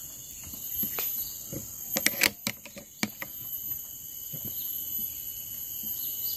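A few light clicks and knocks from a scoped air rifle being shouldered and aimed, mostly around two seconds in, over a steady high insect drone.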